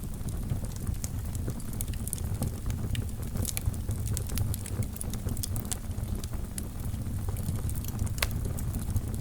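Wood fire in a fireplace crackling and popping, with many irregular sharp snaps over a steady low rumble of the flames.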